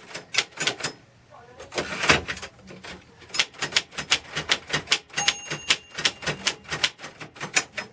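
Keys of a Royal Safari manual typewriter being typed: sharp typebar strikes, a few at first, then after a short lull a steady run of several strikes a second. A brief ringing tone sounds among the strikes about five seconds in.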